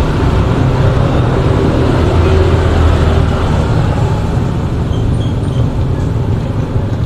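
Steady low rumble of road traffic, swelling about two to three seconds in, with a few faint high chirps about five seconds in.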